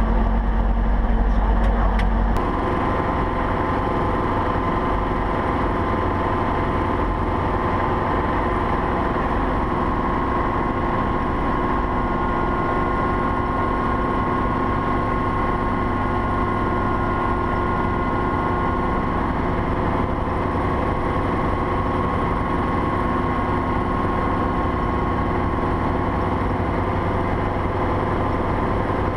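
Schweizer 300CB helicopter's four-cylinder Lycoming piston engine and rotor running steadily on the ground shortly after start-up, heard from inside the open cockpit. About two seconds in, the deep low rumble eases and a steady whine comes in, then the sound holds even.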